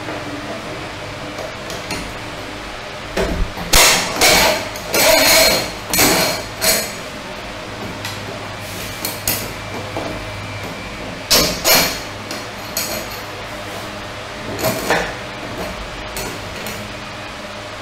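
6 mm steel threaded rod knocking and rattling against a plastic tube and printed plastic bushes as it is pushed through them: a cluster of clattering knocks a few seconds in, then a few more knocks later.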